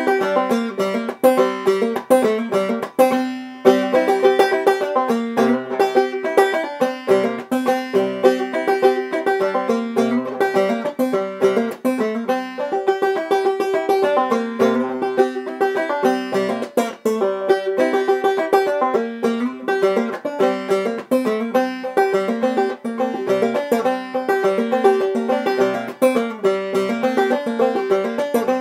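Clawhammer-style five-string banjo played solo, a steady, rhythmic stream of plucked and brushed notes in an old-time tune, with a brief break about three seconds in.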